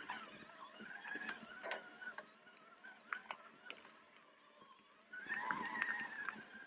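Mountain bike being ridden up a dirt trail: scattered ticks and rattles from the bike over a steady high whine. About five seconds in a louder honking call starts.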